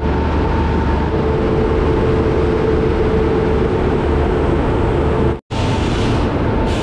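WAP-7 electric locomotive standing with its machinery running: a loud, steady hum with a held tone over it. The hum breaks off for a moment about five and a half seconds in.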